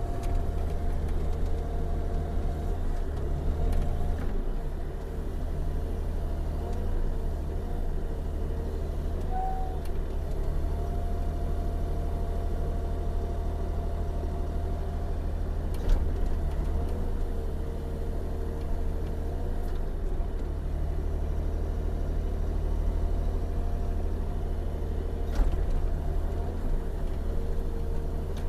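2021 Bobcat E42 mini excavator's diesel engine running steadily, with a whine that wavers in pitch over the drone. Two sharp knocks, about 16 seconds in and near the end.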